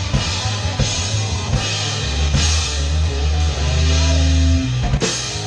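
Live rock band playing: drum kit with cymbal crashes about once a second over electric guitar and a heavy bass line. Near the end the low bass drops away and another crash rings out.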